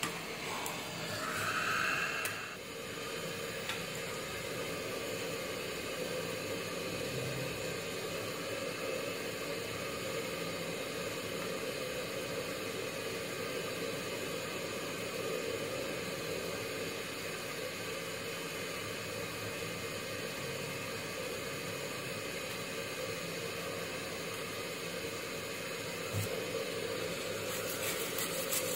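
Steady hiss while a soldering iron and desoldering braid work the pads of a circuit board, with a short high tone about two seconds in. Near the end come quick scratchy strokes of a brush scrubbing the board.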